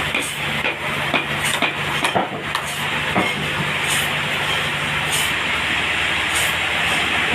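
Sawmill machinery running: a steady engine hum under an even hiss, with scattered knocks and clicks.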